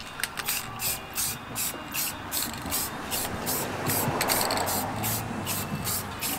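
Aerosol spray paint can hissing as black paint is sprayed onto a truck's bumper, over background music with a quick, even beat.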